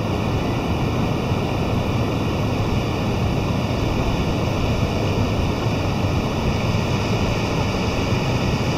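Steady wash of ocean surf breaking on a rocky reef shore, with wind rumbling on the microphone.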